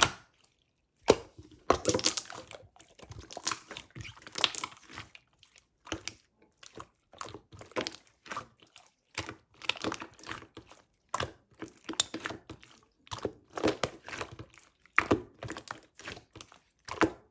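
Clear slime being squished and pressed by hand, making irregular runs of sticky clicks and small popping crackles, with brief pauses between squeezes.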